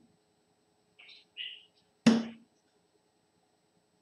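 A single sharp knock with a short ring, about two seconds in, with a couple of faint small clicks shortly before it.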